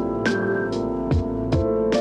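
Background music with sustained chords and a steady beat.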